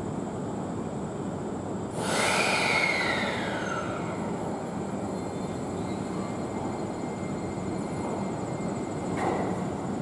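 Train moving at a station platform, running with a steady rumble. About two seconds in, a sudden hiss comes with a squeal that falls in pitch over a couple of seconds, and a second, shorter squeal comes near the end.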